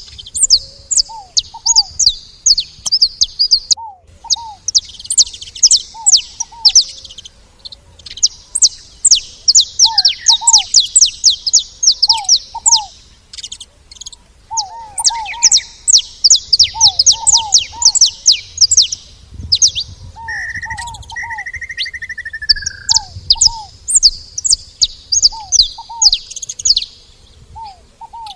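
Saffron finches chattering and singing in fast series of high chips, several birds overlapping almost without pause. Beneath them a lower two-note call repeats every second or two, and a short buzzy note comes in a little past the middle.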